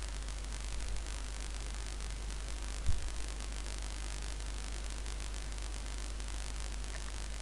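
Steady hiss and low electrical hum from an open microphone's noise floor, with one brief low thump about three seconds in.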